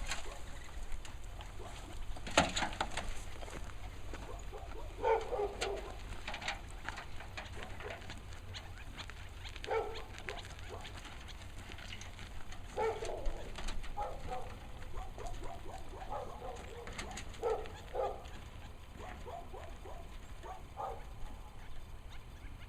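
Short low cooing calls repeating at irregular intervals, like pigeons or doves, mixed with scattered sharp clicks and knocks.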